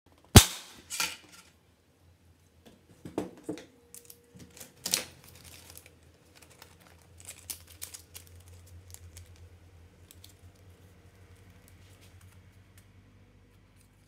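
Thin PVC plastic strips clacking and rattling against each other and the cutting mat as they are handled and sorted. A few sharp clacks come in the first five seconds, the loudest about half a second in, followed by lighter, quicker rattling.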